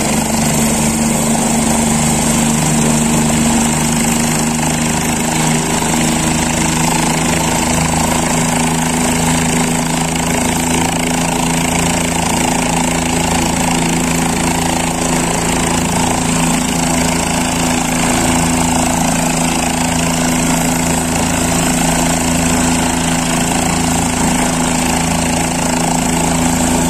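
A helicopter running on the ground at idle. It makes a steady engine drone with a constant high whine over it, unchanging throughout.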